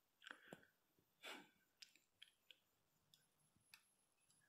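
Near silence: room tone with a few faint scattered clicks and one soft breath a little over a second in.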